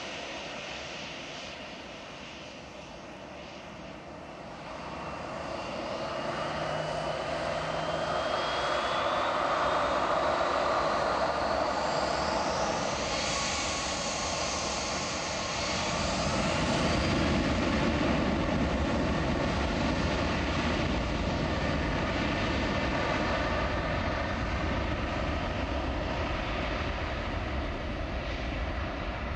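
Boeing 737-800's twin CFM56-7B turbofans spooling up: a whine rises steadily in pitch over several seconds, then gives way to a steady deep roar at takeoff power.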